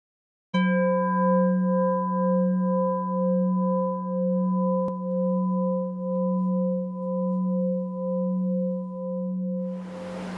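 A singing bowl struck once, then ringing on with a low fundamental and higher overtones that waver in a slow beat as the ring gradually fades.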